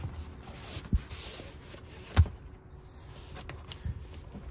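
Handling noises of a car seat being worked against a cloth-wrapped step ladder: a dull knock about a second in, a louder knock a little after two seconds, then a few faint clicks near the end.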